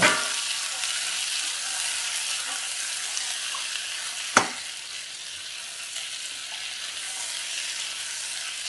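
Kidney beans and onions sizzling in hot oil in a stainless steel kadai while being stirred with a silicone spatula: a steady frying hiss, with one sharp tap about four seconds in.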